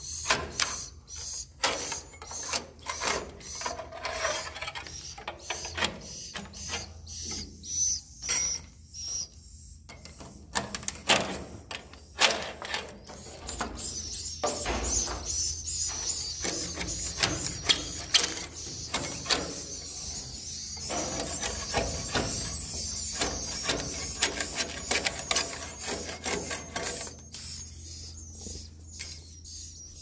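White-nest swiftlets in a swiftlet house, giving rapid clicks throughout and high twittering that grows dense from about halfway and fades near the end.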